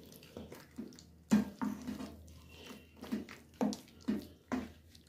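Wooden spoon stirring raw meat pieces into ground masala in a steel bowl: irregular wet squelches and scrapes.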